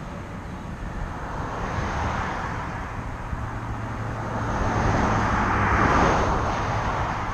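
An SUV driving past close by on an asphalt road: tyre hiss and engine hum build over several seconds to a peak about six seconds in, then ease off.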